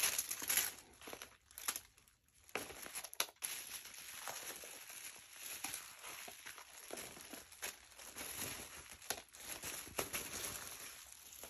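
Bubble-wrap bag crinkling and crackling as it is handled and items are pulled out of it, in irregular bursts.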